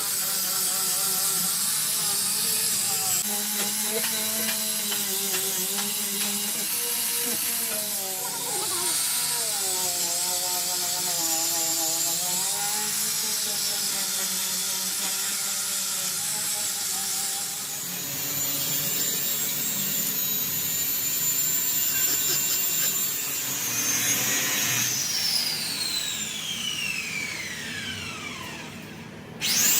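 A power tool, such as a grinder used on tyre rubber, running with a steady high whine. Near the end it stops and its whine falls away over several seconds as it spins down.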